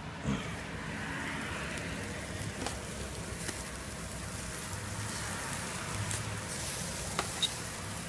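Bacon-wrapped brats, steaks and hot dogs sizzling on a charcoal grill: a steady hiss with a few sharp pops.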